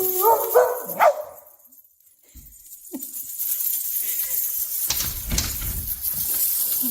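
A dog's drawn-out vocal call that rises in pitch and breaks off sharply about a second in.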